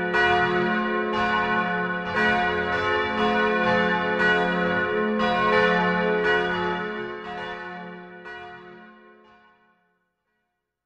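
Church bells ringing, with strikes coming roughly once a second; the last strike falls about eight seconds in, and then the ringing fades out.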